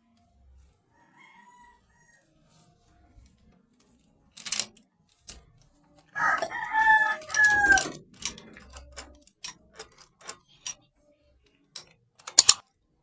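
A rooster crowing once, a drawn-out call that drops in pitch at the end, with scattered sharp clicks and knocks around it.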